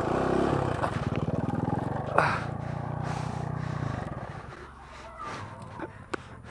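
Motorcycle engine running, with a short sharp sound about two seconds in; the engine dies away after about four seconds.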